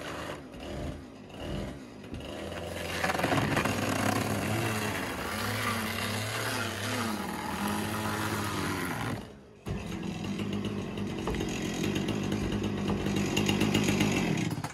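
Chainsaw engine running under load, its pitch rising and falling as it cuts. It drops out briefly about nine and a half seconds in, then runs on.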